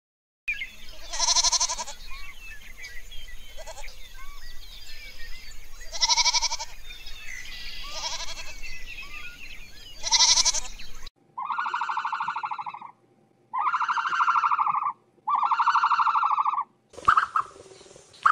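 A series of pitched animal calls, four short cries spread over about ten seconds with faint high chirps behind them. After a cut, three longer calls of about a second and a half each follow one another closely.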